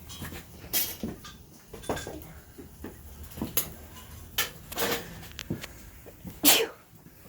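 Intermittent short knocks and clatters from tools and loose engine parts being handled during accessory removal, one every second or so. One sharper, louder sound comes about six and a half seconds in.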